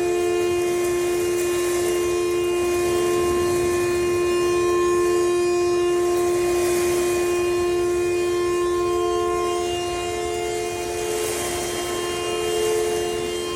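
Outdoor tornado warning siren sounding a steady, unwavering tone for a tornado warning, with a second, fainter tone coming and going over it.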